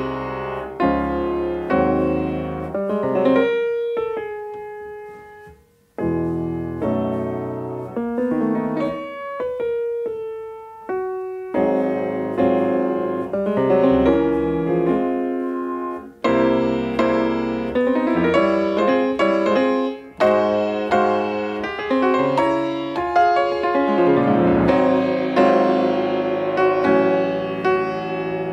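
Piano music playing, a melody over chords, with a brief pause about six seconds in.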